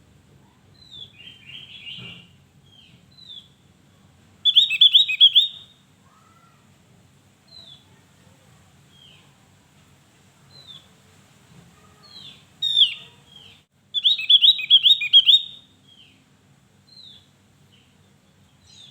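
Javan grey-throated white-eye (opior Jawa) singing: scattered short, high down-slurred chip notes, with a loud, rapid chattering burst of song about four and a half seconds in and two more loud phrases in the second half.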